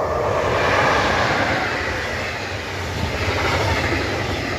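Electric passenger train of double-deck coaches passing close at speed: an even rush of steel wheels on rail and moving air that swells quickly, is loudest about a second in, then holds steady as the coaches roll by.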